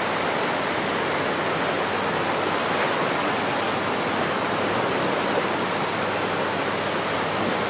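Low surf washing up a sandy beach: a steady, even rush of small waves.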